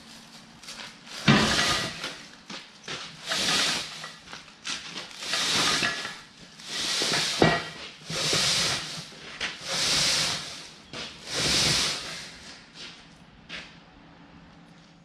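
Bristles of an Elgin Pelican street sweeper's main barrel broom scraping along a concrete floor as the broom is dragged out from under the machine in repeated pulls: about seven scraping swells a second and a half apart. A sharp knock about a second in and another midway.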